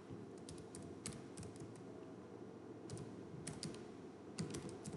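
Computer keyboard being typed on in short runs of keystrokes with pauses between, as a short terminal command is entered.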